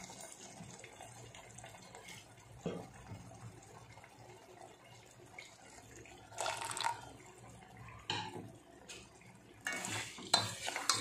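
Tomato purée cooking in a stainless steel pot, a faint steady sound with a few short scrapes. Near the end a spoon stirs the pot, with sharp clicks and scrapes against the steel.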